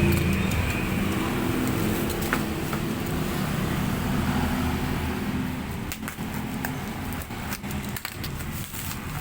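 A motor vehicle engine running steadily, fading after about five seconds. Scattered sharp clicks and crackles of handling are heard, more of them near the end.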